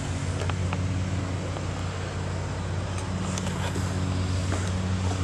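An engine idling with a steady low hum, with a few faint clicks over it.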